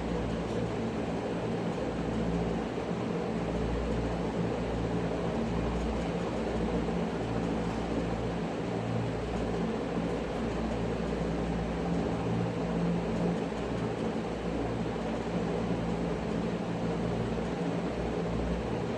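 Steady mechanical hum with a low, wavering drone, unbroken throughout.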